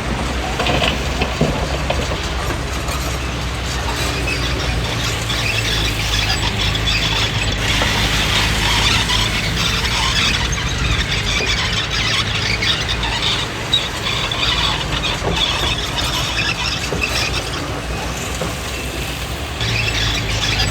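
Komatsu D20P crawler bulldozer at work: its diesel engine runs steadily under the squealing and clatter of the steel tracks. The engine note steps up and gets louder near the end.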